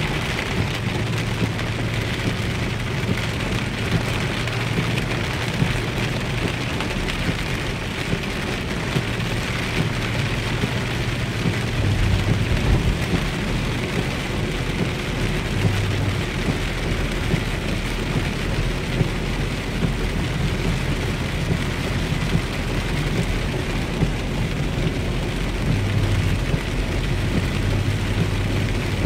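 Heavy rain drumming steadily on the windshield and roof of a moving Lexus LX 470, heard from inside the cabin, with a low rumble underneath.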